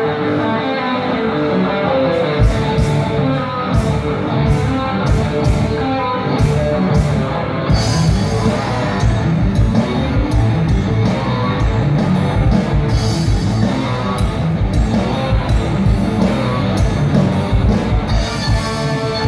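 Live rock band playing through a PA: an electric guitar riff at first, with the drum kit coming in about two seconds in with steady cymbal strokes. The full band of guitars, bass and drums fills out about eight seconds in.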